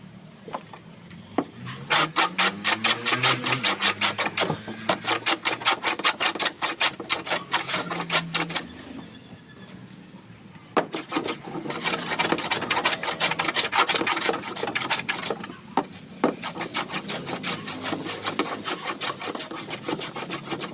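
Hand plane shaving the edge of a plywood boat-hull panel in rapid, short, repeated strokes: two runs of several seconds with a pause between, then sparser strokes near the end. The edge is being trimmed so the panel sits flush.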